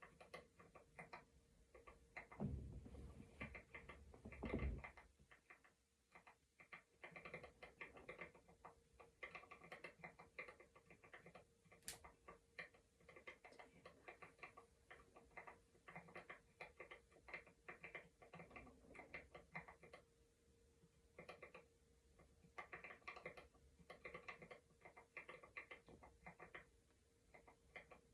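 Quiet, close-miked rapid clicking and scratching in bursts with short pauses, with two low thumps a few seconds in and a faint steady hum underneath.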